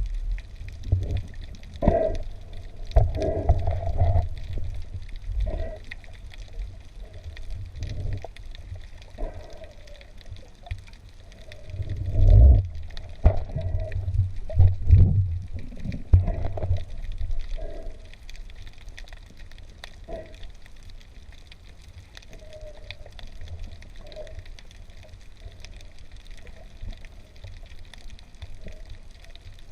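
Water sloshing and gurgling against a camera during a spearfishing dive, with irregular low rumbling surges and a few knocks, strongest about twelve to sixteen seconds in.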